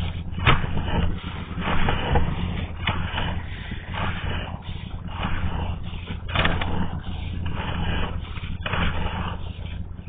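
Drain inspection camera's push cable being pulled back through the line: irregular scraping and knocking over a steady low hum.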